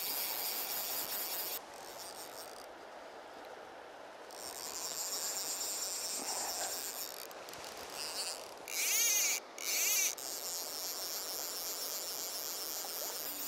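A steady, high-pitched chorus of chirring insects, thinning for a couple of seconds early on. Two louder chirring bursts come close together about nine seconds in.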